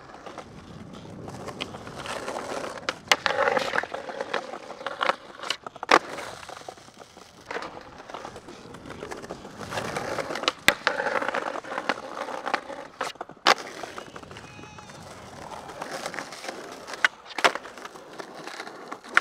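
Skateboard wheels rolling over concrete, with the sound swelling twice as the board passes close. Several sharp clacks of the board popping and landing are heard along the way.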